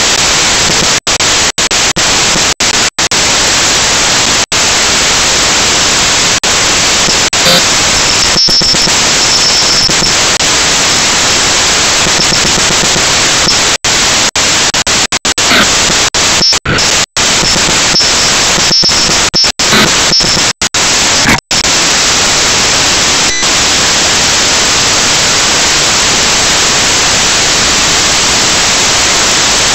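Loud, steady static hiss in a drone camera's audio track, broken by many brief dropouts to silence, clustered in the middle. The hiss runs on unchanged after the drone has crashed, so it is electronic noise and not the propellers.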